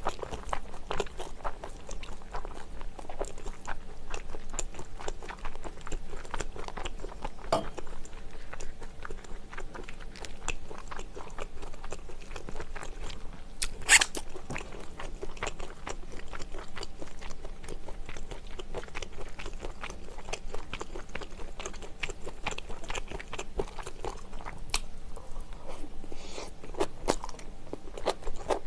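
Close-miked chewing and mouth sounds of someone eating egg fried rice and kimchi, with light clinks and scrapes of a metal spoon against a stainless-steel wok and bowl. One sharp, louder clink about halfway through.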